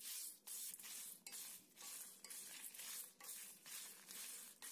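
Chana dal, urad dal, coriander seeds and dried red chillies being stirred with a spatula while they dry-roast in a kadai. The dry seeds and lentils rattle and scrape against the pan in faint, even strokes, about two a second.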